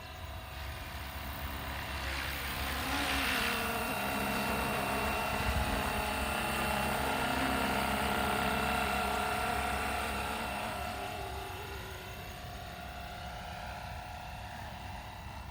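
Flywing Bell 206 RC helicopter in flight, its electric motor and rotor giving a steady whine over a low hum. It grows louder for several seconds, then eases off near the end.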